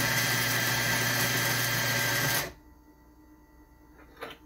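Eureka Atom Specialty 75 espresso grinder (75 mm flat burrs) grinding coffee beans straight into a portafilter on a 3.3-second timed dose: a steady motor hum with the hiss of grinding, which cuts off abruptly about two and a half seconds in. A brief faint knock follows near the end.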